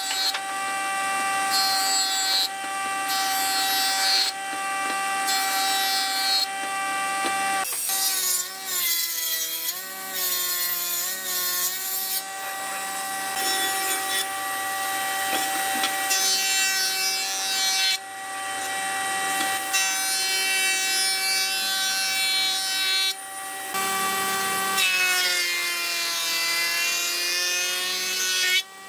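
Electric power tool cutting or shaping wood, its motor whining steadily, with the pitch dipping and wavering twice as it bears into the wood.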